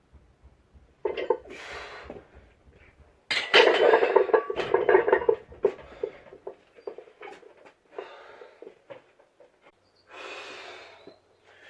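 Metal clanking and clattering: a dense run of knocks and rattles about three seconds in is the loudest part, with scattered clicks around it. Two short breathy rushes of noise come about a second in and near the end.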